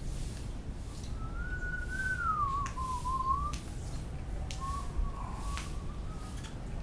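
A person whistling: one long wavering note that dips in pitch and rises again, then a shorter, fainter note, over a low rumble with a few faint clicks.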